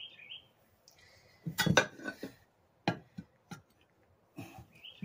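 Steel tire bar clanking and scraping against a riding-mower's steel wheel rim while levering the tire bead over it: a quick cluster of loud clanks about one and a half seconds in, then a few single clinks. A bird chirps briefly at the start and near the end.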